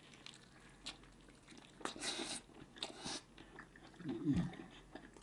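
Close-miked eating: a person biting and chewing food, with scattered mouth clicks and two short crunchy bursts. A brief low voice sound falls in pitch about four seconds in.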